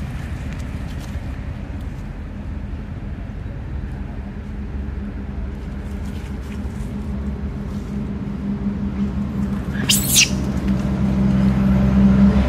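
A steady low motor hum, building louder near the end, with one brief high, wavering squeal about ten seconds in.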